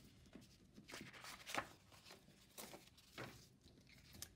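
Faint rustles and light taps of folded cardstock pieces being handled and laid on a table, a handful of separate soft strokes, the loudest about one and a half seconds in.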